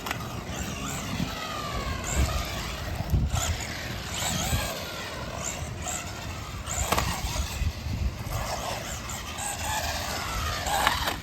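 Small electric RC car, a JJRC 8805 on street tires, driving with its motor whine sliding up and down in pitch as the throttle changes, over a low rumble of tyres and wind.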